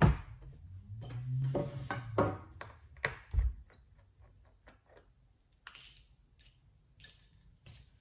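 An aluminium MacBook Air laptop set down on a table with a knock, followed by handling noise and a clear plastic parts tray being moved. After that come scattered light clicks and ticks of a small screwdriver undoing the laptop's bottom-case screws.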